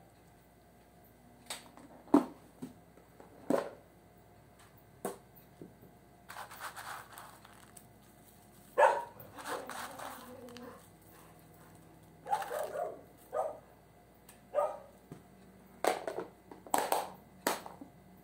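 Tableware being handled while serving: a serving spoon knocking and scraping in a glass baking dish and on a ceramic plate, a plastic food container and its lid clattering, and shoestring potato sticks shaken out. The sounds come as a dozen or so short, irregular knocks and scrapes.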